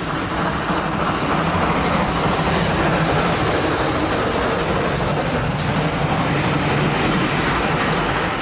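A train rushing past, a loud, steady rumble that eases off a little near the end.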